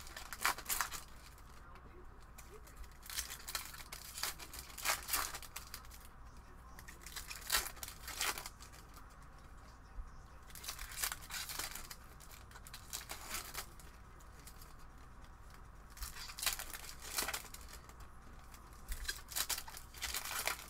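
Foil wrappers of Panini Prizm retail basketball card packs being torn open and crinkled by hand, in short bursts of tearing and crinkling every few seconds.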